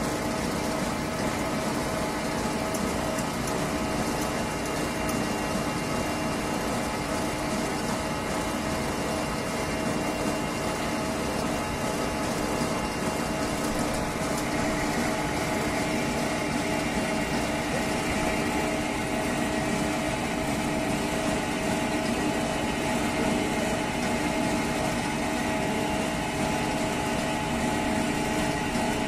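John Deere tractor's diesel engine running steadily at low revs, driving the mobile apple press through its hoses. The hum is even throughout, turning a little brighter about halfway through.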